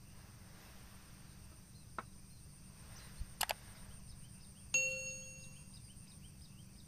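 Subscribe-button animation sound effect: a couple of clicks, then a bright bell-like ding about five seconds in that rings and fades away. A faint steady low background noise sits underneath.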